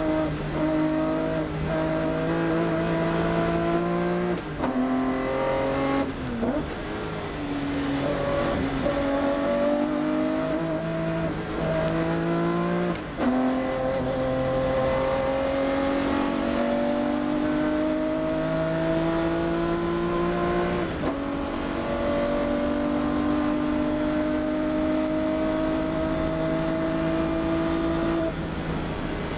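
BMW 320 Group 5 race car's engine, heard from inside the cockpit, pulling hard under full throttle. Its pitch climbs steadily and then drops sharply at each upshift, three times, with a stretch of uneven revs through a corner in the middle and a lift-off near the end.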